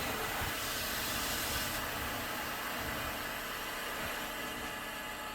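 FM radio static: a steady even hiss from a receiver tuned to a weak, distant station, briefly brighter in the upper range about a second in.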